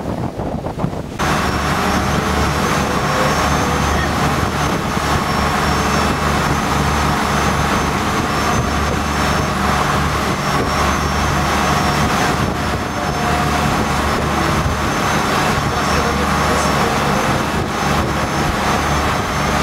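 Motor boat's engines running with a steady drone, cutting in abruptly about a second in over wind noise.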